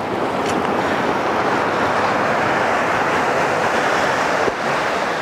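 Ocean surf washing against a rocky shore, a steady rushing noise.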